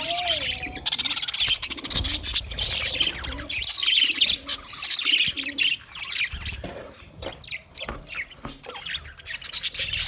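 A flock of budgerigars chattering, with many high chirps and warbles overlapping. The calls are busiest in the first half, thin out about six seconds in, and pick up again near the end.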